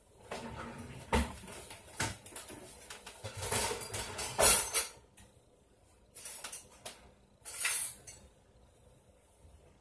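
Kitchen clatter of dishes and utensils being handled: a run of knocks, clinks and rattling through the first five seconds, loudest around four and a half seconds in. Two shorter bursts of clatter follow, then it goes quiet.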